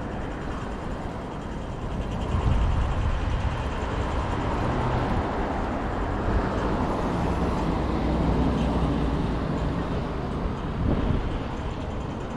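City traffic: the low rumble of a passing motor vehicle swells about two seconds in and runs on steadily.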